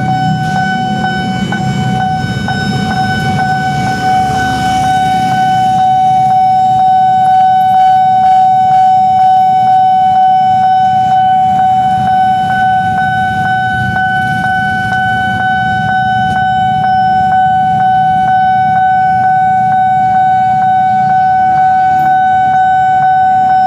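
Railway level-crossing warning alarm sounding one steady, unbroken tone, over the low running of a crowd of motorcycle engines idling at the crossing.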